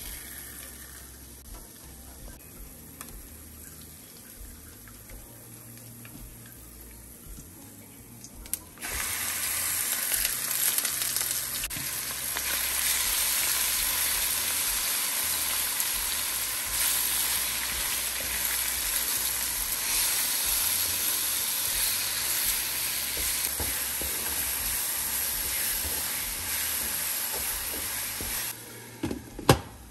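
Hot oil in a nonstick wok sizzling faintly around whole spices, then jumping suddenly to a loud, steady frying hiss about nine seconds in as chopped onions go into the oil and are stirred with a wooden spatula. The frying dies down near the end, followed by one sharp clack.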